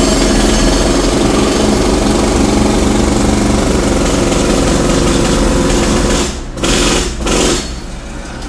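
Jackhammer running in a long, loud, rapid hammering run that stops about six seconds in, followed by two short bursts before it goes quiet.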